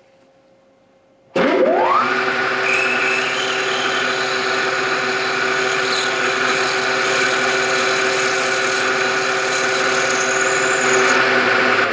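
Milling machine spindle starting about a second in, its whine rising as it spins up, then running steadily while drilling a 1/4-inch hole in a part held in an indexing fixture.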